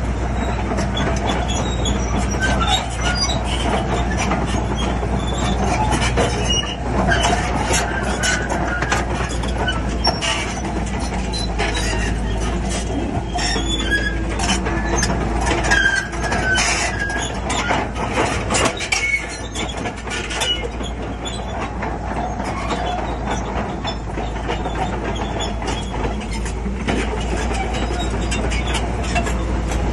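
Crawler bulldozer working: its diesel engine runs steadily under the constant clanking and intermittent squealing of its steel tracks.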